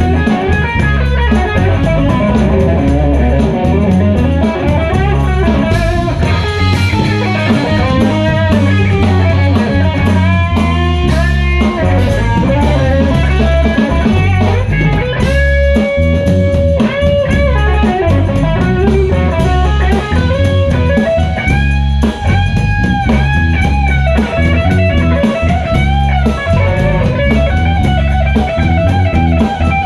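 Live blues-rock band playing an instrumental passage: electric guitar, bass and drum kit, with a lead line of bending notes and one long held note about halfway through.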